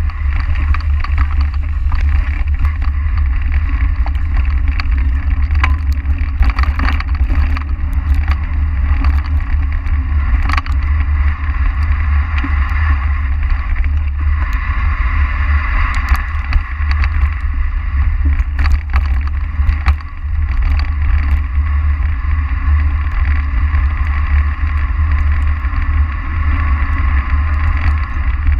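Wind buffeting the microphone of a bike-mounted camera as the bike rides fast over a dirt forest trail, with rattles and knocks from the rough ground throughout.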